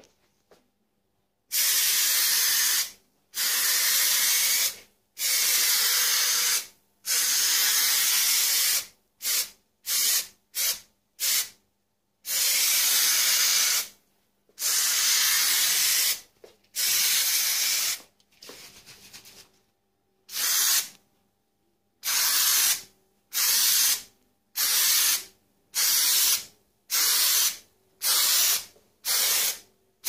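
Contact adhesive sprayed onto a steel plate in repeated hissing bursts, long ones of one to two seconds at first, then short bursts about once a second.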